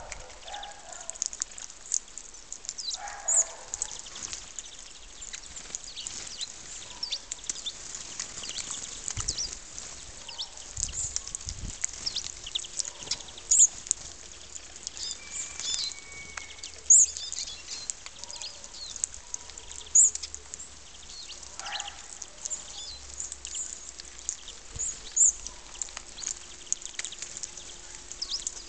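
A flock of small birds twittering, with many short high chirps throughout and now and then a louder, lower call.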